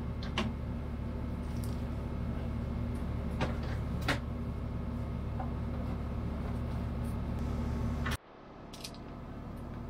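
Steady low machine hum with a few sharp clicks and knocks as an egg carton, bagged food and a small fridge are handled; the hum cuts off abruptly near the end.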